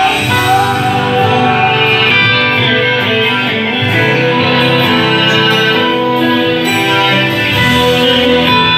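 Gospel hymn music, with guitar prominent and little or no singing.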